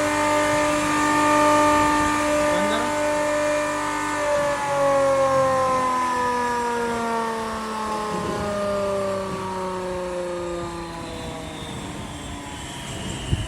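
10 HP double-chamber flour grinder running with a steady machine hum. About four seconds in, its pitch starts sliding slowly downward and the sound fades as the machine coasts down. A short knock comes near the end.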